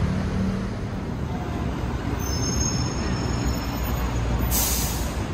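City street traffic noise: a steady low rumble of passing vehicles, with a short hiss near the end.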